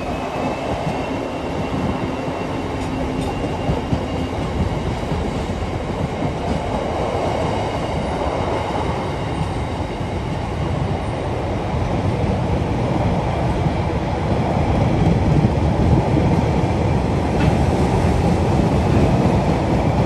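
Freightliner Class 66 diesel freight train passing: the locomotive's two-stroke V12 engine is heard at first with a steady low tone that fades within a few seconds, then comes the continuous rumble of the hopper wagons' wheels on the rails, growing a little louder in the second half.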